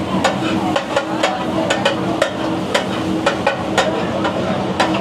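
A metal spatula clanking and scraping on a hot griddle, about two or three sharp strikes a second, as street-stall food sizzles over a steady low hum.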